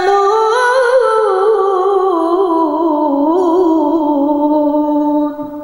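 A woman's voice reciting the Qur'an in melodic tilawah style through a microphone: one long held phrase with wavering ornaments that slowly falls in pitch, then fades out near the end.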